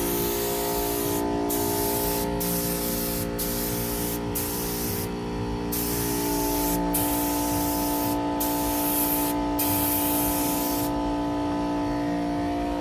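Air-fed paint spray gun spraying automotive clear coat: a loud hiss in about ten passes of roughly a second each, cut by brief trigger releases, stopping about eleven seconds in.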